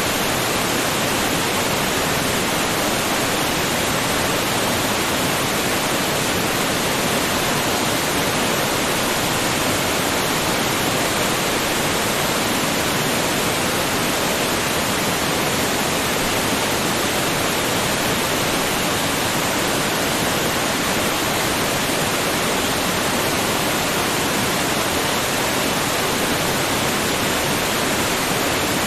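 Waterfall: a steady, even rush of falling water with no changes or separate splashes.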